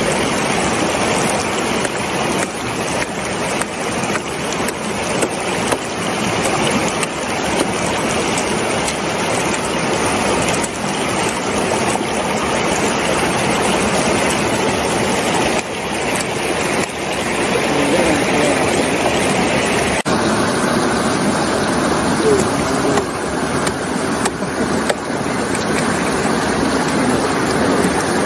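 Small rocky stream running over rocks close by: a steady wash of water noise, its sound shifting slightly about two-thirds of the way through.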